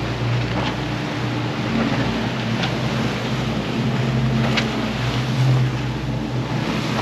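Sea Hunt Gamefish 30 center-console boat running at speed on open sea: a steady engine drone under the rush of wind and water along the hull.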